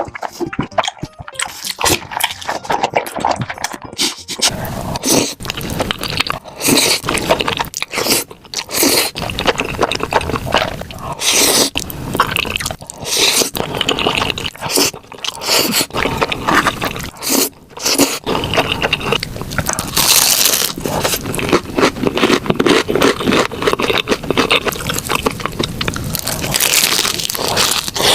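Close-miked ASMR eating: a person biting and chewing food, with dense, irregular crunches and crackles and wet mouth sounds.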